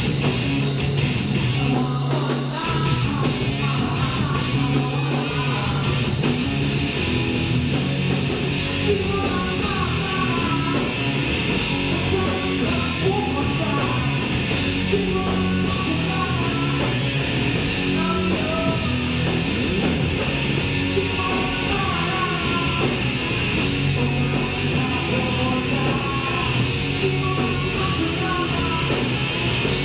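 Live rock band playing with electric guitar, loud and steady throughout.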